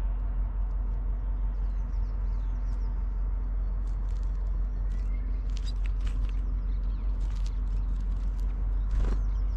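A brambling pecking among sunflower seeds and husks right by the microphone: a run of small sharp clicks from about four to eight seconds in, with faint distant bird chirps. A steady low rumble runs underneath, and there is a soft thump near the end.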